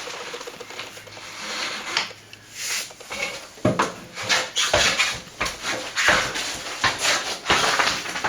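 A tool smoothing wet cornice cement around a plaster wall vent, making irregular rubbing and scraping strokes that become louder and more frequent about halfway through.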